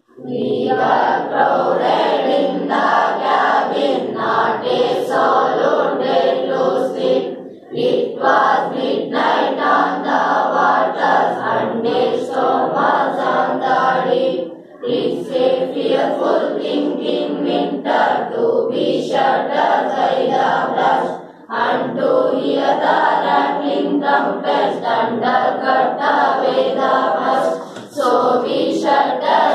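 A class of schoolchildren chanting a poem aloud in unison from their textbooks, many voices together in a sing-song chorus, with a short breath pause between verses about every seven seconds.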